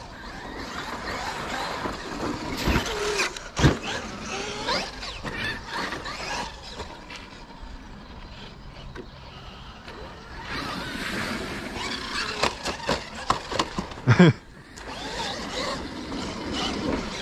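Electric RC monster truck running over the track, its motor whining up and down with the throttle. A few sharp knocks from jumps and landings, the loudest about four seconds in and about fourteen seconds in.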